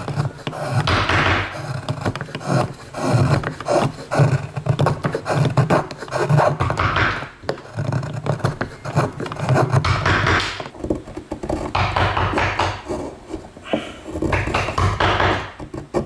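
Hand carving chisel paring shavings off a small wooden figure: a series of short scraping cuts into the wood, one every second or so, with light knocks of wood on wood.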